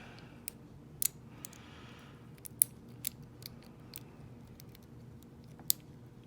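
Lock pick and tension wrench working the pin stack of a 5-pin ISEO euro cylinder: irregular small sharp metallic clicks, about a dozen, with a short soft scrape between about one and two seconds in, as the picker tries to get back into a false set on the spool pins.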